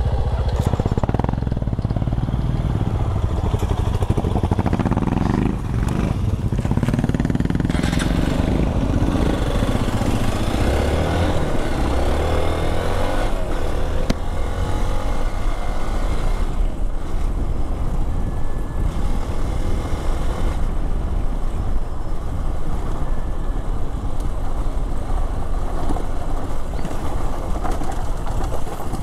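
Single-cylinder dual-sport motorcycle engine pulling away and accelerating on a dirt track, rising in pitch through the first dozen seconds, then running on steadily, with wind rush.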